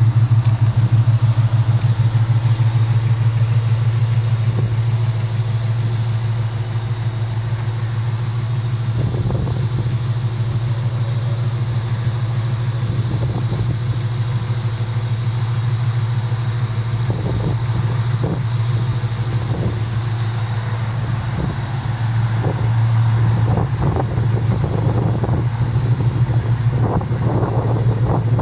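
Chevrolet 350 small-block V8 idling steadily with a low, pulsing exhaust note. A few light knocks come in about a third of the way in and more often near the end.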